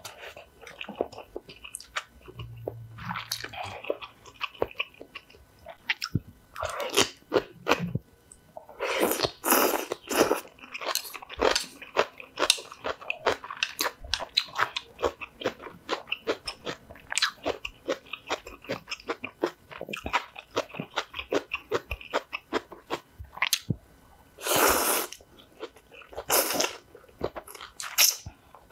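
Close-miked eating: wet crunching and chewing of napa cabbage kimchi and spicy ramen, with a few longer loud slurps of noodles.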